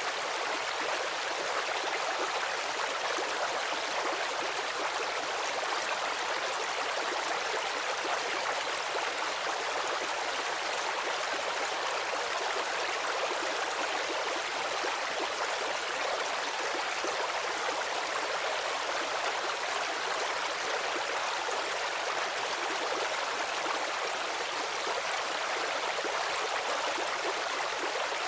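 Stream water running and gurgling in a steady hiss that holds an even level throughout.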